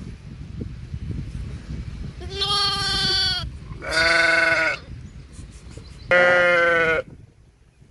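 Sheep bleating: three loud, drawn-out bleats, each about a second long, a few seconds in, about four seconds in and about six seconds in.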